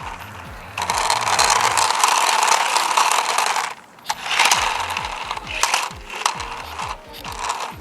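Remote-control Thunder Tumbler toy car's small electric motor and plastic gears whirring as it is driven, in bursts of a few seconds that stop briefly about four seconds in.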